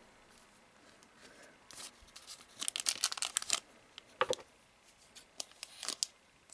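Plastic booster-pack wrapper being torn open and crinkled by hand: a quick run of sharp crackles about two and a half seconds in, then a few single crinkles.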